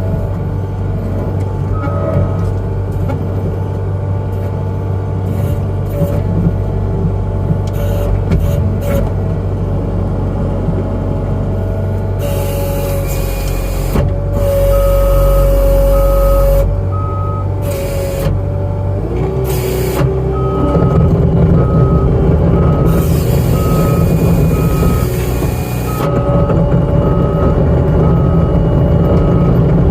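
New Holland C327 skid steer's diesel engine running hard, with hydraulic whine and hissing as it works the forks. Its backup alarm beeps steadily through the second half as the machine reverses.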